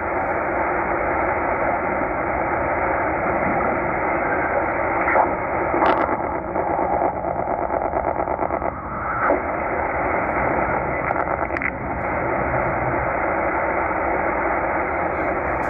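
Tecsun H-501x shortwave receiver's speaker playing steady static in upper sideband mode as it is tuned across the 14.8–14.9 MHz utility band. There are a few brief blips and clicks of passing signals, mostly in the middle of the stretch.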